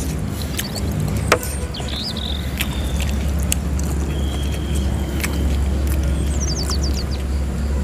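Two people chewing bakso meatballs, with scattered clicks of forks against the plate and one sharp clink about a second in, over a steady low rumble. A few short bird chirps come through, one about two seconds in and a quick descending run near the end.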